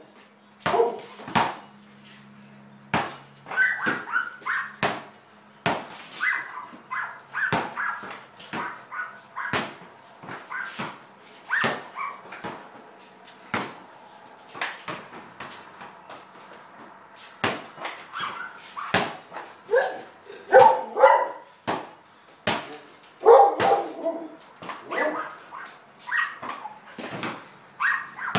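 Border collie barking and yipping excitedly in short clusters, over the repeated sharp bounces of a basketball being dribbled on a concrete garage floor.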